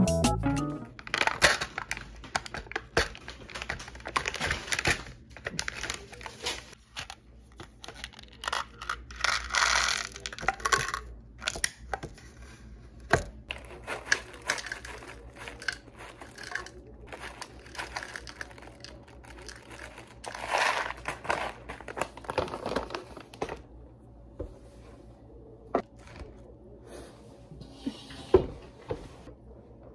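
Food packaging handled at a table: plastic crinkling and tearing, granola rattling out of a stand-up pouch into a plastic yogurt cup, with many small clicks and taps in between. The handling is busiest through most of the stretch and thins out to occasional taps near the end.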